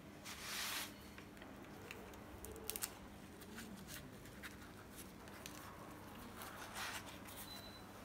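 Faint rustling of hands rolling a filled rumali roti into a wrap on a wooden cutting board: a soft swish about half a second in, a few small clicks around three seconds, and another swish near seven seconds.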